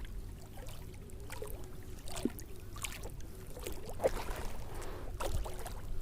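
Water sloshing and trickling, with a few light splashes and knocks over a steady low rumble.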